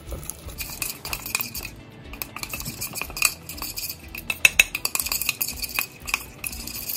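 A spoon stirring a thick spice paste in a bowl: a run of quick clinks and taps against the bowl, busiest a little past the middle.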